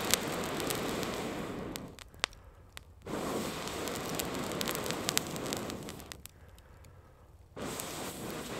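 Campfire crackling with sharp pops, over a steady rushing noise that fades out twice for about a second and comes back suddenly each time.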